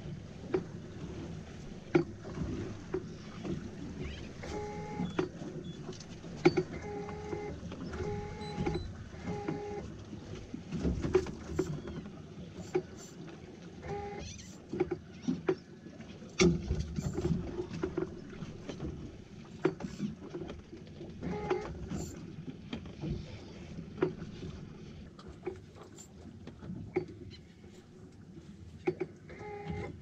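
Water slapping against the hull of a drifting fishing boat, with frequent knocks and clicks from the boat and tackle. Several short beeps sound, most of them between about five and ten seconds in.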